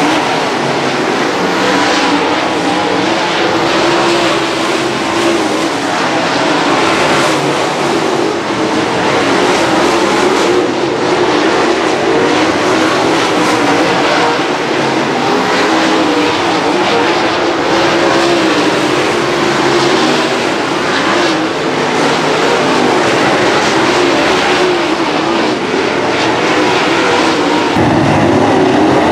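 Race car engines running at speed on the track, loud and steady throughout.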